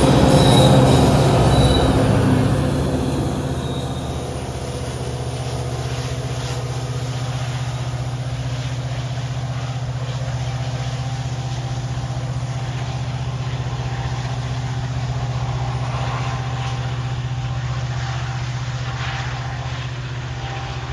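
EMD SD70ACE diesel locomotive rolling close past at the rear of a freight train, with wheel squeal in the first couple of seconds. Then a steady, even diesel locomotive engine drone with rail noise under it.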